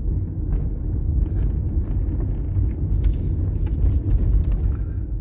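Car driving along a town street: a steady low rumble of engine and road noise.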